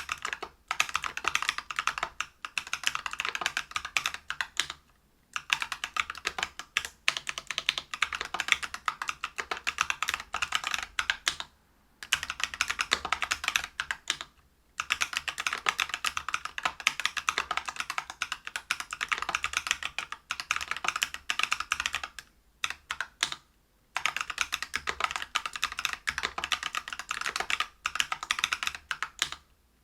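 Continuous fast typing on a LinWorks Whale 75 mechanical keyboard with lubed Neapolitan Ice Cream 63.5 g tactile switches, a brass plate and PBT keycaps: dense runs of key clacks broken by several brief pauses.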